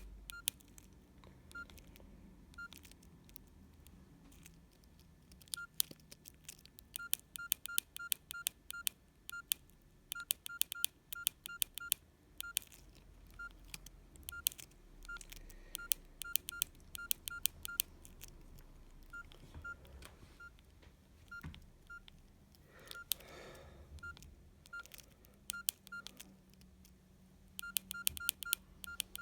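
Mobile phone keypad being pressed over and over, each press a sharp click with a short single-pitch key beep, in irregular quick runs broken by short pauses.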